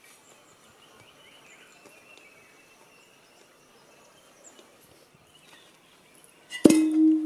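Faint chirping in the background, then about six and a half seconds in a metal cooking vessel is knocked down sharply and rings on with a single steady tone that pulses in loudness.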